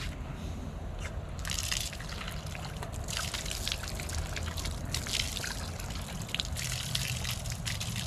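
Water running from an outdoor standpipe tap, splashing into cupped hands and falling onto the ground. The tap is turned on at the start, and the splashing starts about a second and a half in, uneven as the hands catch and spill it.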